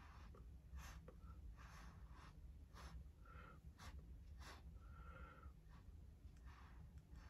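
Faint, short puffs of breath blown through a drinking straw onto wet acrylic paint, about one or two a second, some with a faint whistle.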